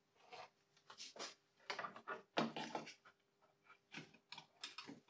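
A string of short, irregular clicks, knocks and rustles from small parts being handled by hand, faint, with a dozen or so separate knocks and a busier patch in the middle.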